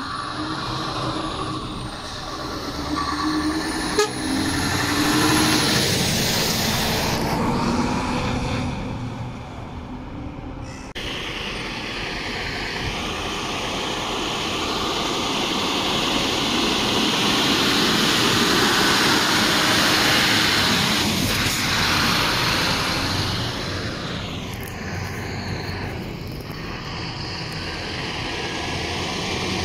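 Heavy trucks driving past: diesel engines running with tyre and road noise. After a sudden change partway through, a passing truck grows louder to a peak and then fades away.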